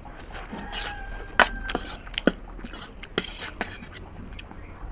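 Close-up eating sounds of instant noodles: wet slurping and lip-smacking in short bursts. A couple of sharp clicks from the steel fork on the steel tray come in, the loudest about a second and a half in.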